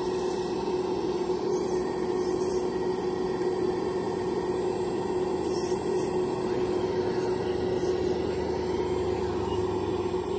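Radio-controlled scale Kobelco excavator's hydraulic pump running with a steady, even whine as the boom and bucket dig into brush.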